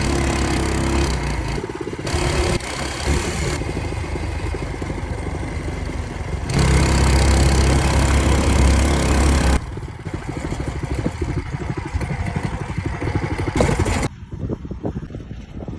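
A Fatcat FC 212 mini bike's 212cc single-cylinder four-stroke engine on its first start after assembly, with the choke on. Its speed rises and falls, with a louder spell of revving in the middle.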